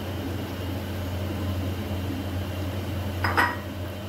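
Steady low mechanical hum in a kitchen, with one brief clink about three seconds in as the glass bowl knocks against the pot while marinated chicken is tipped in.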